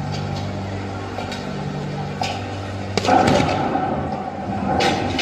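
Crowd chatter over a steady low hum. A sharp crack about three seconds in is followed by a burst of noise, and another crack and burst come near the end.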